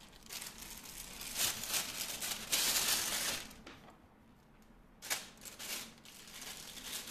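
Clear plastic piping bag crinkling and rustling as it is handled and a nozzle is fitted into it, loudest from about two and a half to three and a half seconds in, with a short lull before more rustling.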